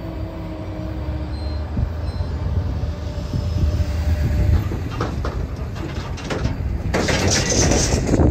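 Intermodal freight train rolling away down the track: a steady low rumble, with faint thin squeal tones in the first seconds and a few wheel clicks later. For the last second or so a loud hiss covers it.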